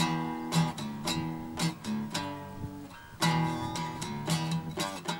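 Solo Taylor 420 six-string acoustic guitar, chords strummed and plucked with no voice. A brief lull comes just before three seconds in, then a strong strum.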